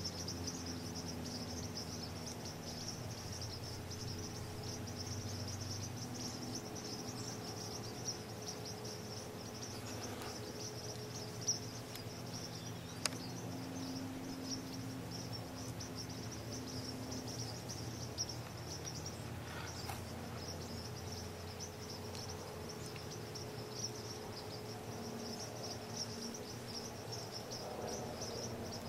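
Crickets chirping in a continuous high-pitched evening chorus, with a few faint ticks.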